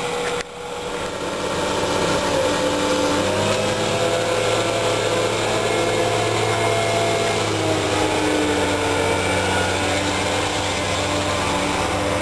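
Ponsse forestry harvester running at work, a steady diesel engine with whining tones that drift up and down in pitch as the crane and harvester head are moved.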